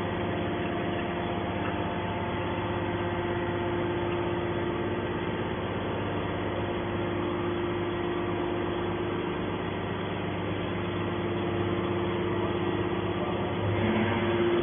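Aluminum can baler machinery running with a steady hum of several held tones, a little louder near the end.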